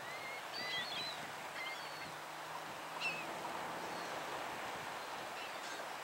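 Seabirds working over baitfish, giving short, high, squeaky cries several times in the first half and once more about three seconds in, over a steady background hiss.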